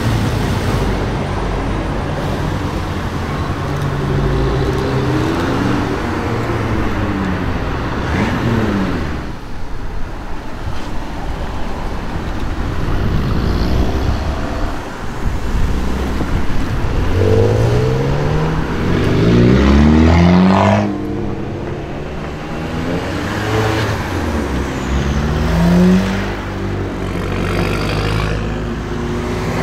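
Volkswagen Scirocco cars accelerating away one after another, the engine note rising in pitch several times as each pulls away. There are abrupt breaks where one car's sound gives way to the next.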